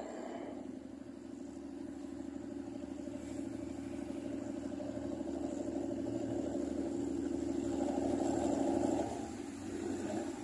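SRT GEK-class diesel-electric locomotive No. 4005 approaching at low speed. Its engine gives a steady drone that grows louder as it nears and eases off briefly near the end.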